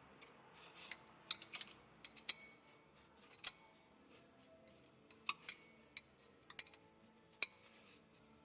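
Irregular sharp metallic clinks of a wrench on loosened nuts and bolts as they are spun off.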